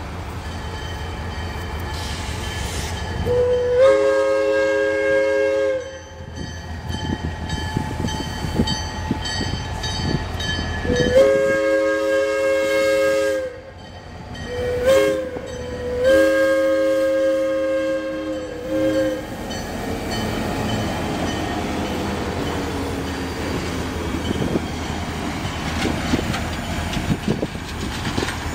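Diesel locomotive's multi-chime air horn sounding the grade-crossing signal: two long blasts, a short one and a long one, over the low rumble of the engine. After that the passenger cars roll past, their wheels clicking over the rail joints.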